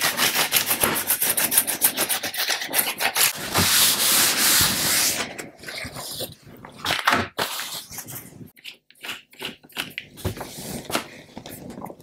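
A paintbrush scrubbing dirt off the plastic keyboard frame of an Atari 65XE in rapid back-and-forth strokes for about five seconds. After that come scattered clicks and taps.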